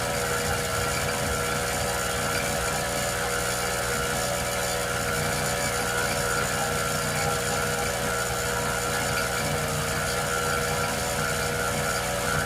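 An engine running steadily at idle, a constant mechanical drone with a steady hum that neither rises nor falls.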